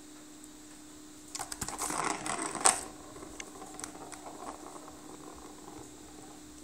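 Plastic ball rattling as it rolls around the plastic track of a cat's circular track toy, a dense run of clicks lasting about a second and a half that ends in one sharp click. Lighter scattered taps and clicks follow as the kitten paws at the toy.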